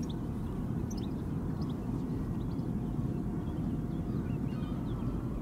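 Waterfront ambience: a steady low rumble with short, high bird calls scattered through it.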